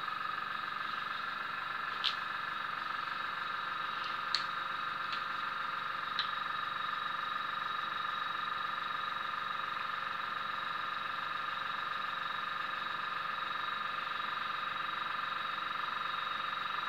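A steady high-pitched electrical whine with a few faint clicks in the first half.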